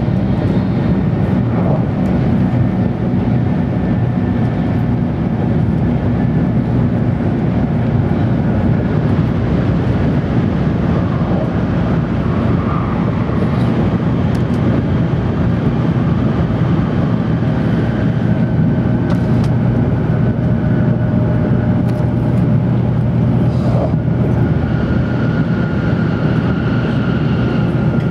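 Steady interior running noise of an N700-series Tokaido Shinkansen passenger car at speed: a constant low rumble of wheels and air. Faint whining tones slowly shift in pitch above it, with a few light clicks.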